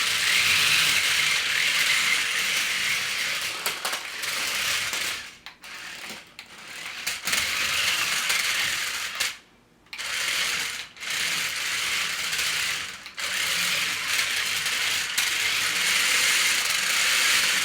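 Toy RC stunt car's small electric motors and plastic gearboxes whirring as it drives, stopping briefly several times and starting up again.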